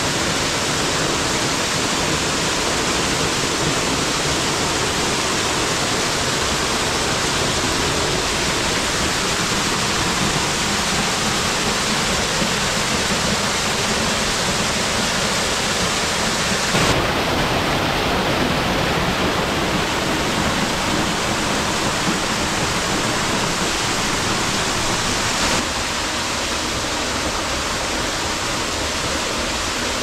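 Waterfall: a steady, heavy rush of falling water. Its texture changes abruptly twice in the second half.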